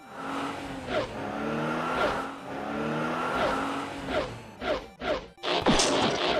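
Sound-effect car engine revving, its pitch rising several times as if shifting up through the gears, followed about four seconds in by a quick string of short mechanical whirs and clicks: a Transformers-style transformation sound effect.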